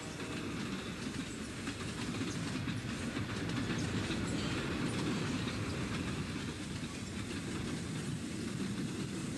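Model train running along its track: a steady low rumble with light clicking of the wheels over the rails.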